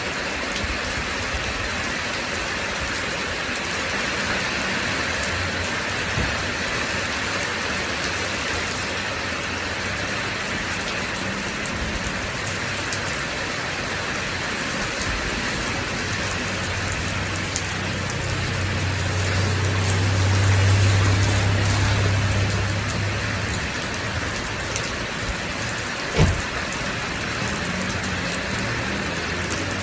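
Steady rain falling, with a low roll of thunder that swells and fades about two-thirds of the way through. A single sharp knock comes shortly after.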